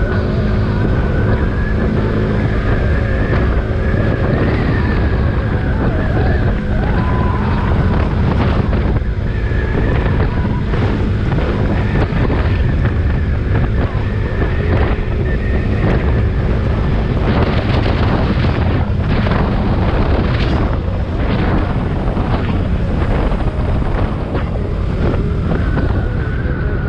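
Wind buffeting the microphone of a GoPro on a moving motorcycle, a steady loud rush with rougher gusts about two-thirds of the way through, over the running motorcycle.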